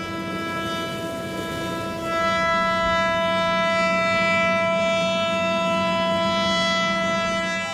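Several ship horns sounding together in long, steady blasts as a salute. Another deeper horn joins about two seconds in, making it louder, and drops out near the end.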